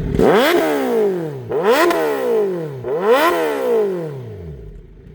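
Kawasaki Z900 motorcycle's inline-four engine revved three times. Each rev climbs quickly to a peak and falls back, and the last one winds down toward idle.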